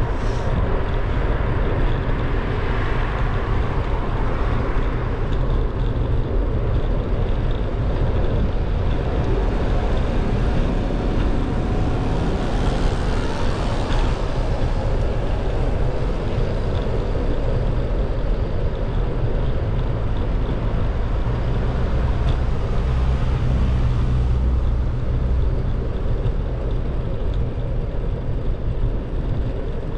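Steady wind buffeting on the microphone and low road rumble from a camera moving along a paved street, with a slight swell a few seconds in and again about halfway.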